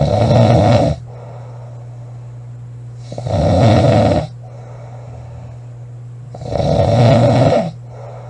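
A woman snoring loudly in a steady rhythm: three snores, each about a second long, spaced about three and a half seconds apart. A steady low hum runs underneath.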